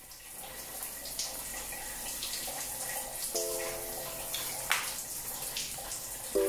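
Shower running, a steady spray of water, with a few light clicks. Short held musical notes come in twice, once around the middle and again near the end.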